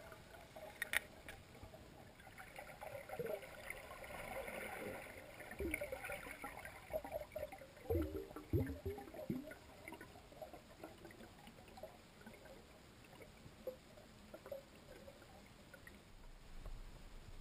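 Faint underwater sounds heard through a waterproof camera housing: soft gurgling and bubbling with scattered small clicks and knocks, and a few low thuds about eight to nine seconds in.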